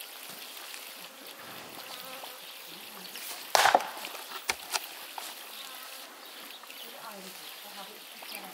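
An axe splitting firewood: one heavy strike into a log about three and a half seconds in, followed by a few lighter knocks of wood.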